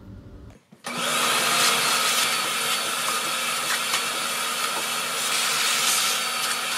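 Shop vacuum switching on about a second in and running steadily as a constant whirring hiss with a steady motor hum and whine, sucking dust and dirt off a bare wooden stair tread.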